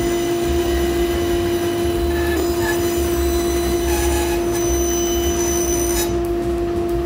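Band saw running and cutting a handle shape out of a board, with a steady whine from the machine over an uneven low rumble.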